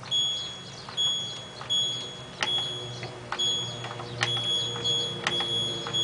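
An LG F1222TD washing machine's control panel beeps at each press of its spin-speed button as the spin setting is stepped through. It gives a string of short, high, single-pitched beeps, a little faster than one a second, with the click of the button audible under several of them.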